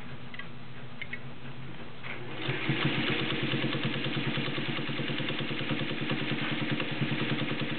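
Singer 301 sewing machine starting up about two seconds in and stitching fast and steadily through six to eight layers of folded fabric. Before it starts there is only a low hum and a few light clicks.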